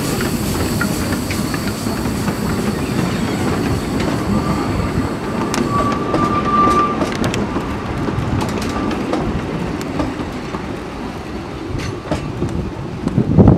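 Narrow-gauge steam train's coaches running past and away, wheels clicking over the rail joints, with a thin wheel squeal for a few seconds in the middle as they take the curve. A loud thump comes near the end.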